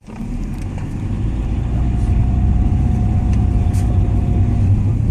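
Steady low rumble of a motor vehicle on the move, with a faint steady whine above it.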